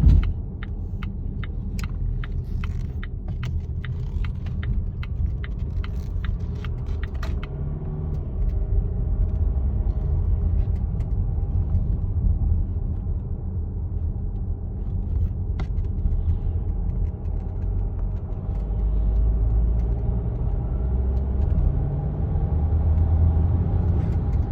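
2018 Volvo XC60 running with a low rumble, and a fast regular ticking, about two or three ticks a second, that stops about seven seconds in. This is the ticking noise that was traced to a worn lower engine mount on the driver's side.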